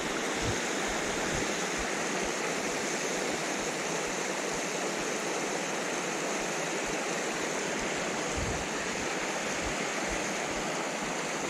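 Small moorland stream running fast over rock ledges and shallow cascades: a steady, even rush of water.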